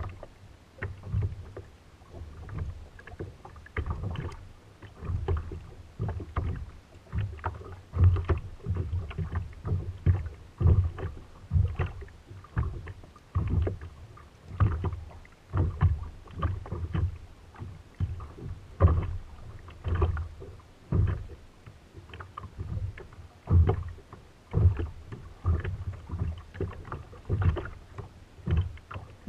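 Small waves slapping irregularly against the hull of a sit-on-top kayak: dull, low thuds with a short splash, about one or two a second.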